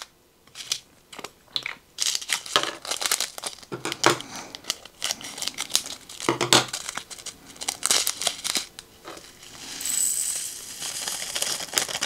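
Small plastic zip bags of resin diamond-painting drills crinkling as they are handled and opened, with light clicks of plastic storage pots and a plastic drill tray. Near the end comes a steadier rush as the tiny drills are poured.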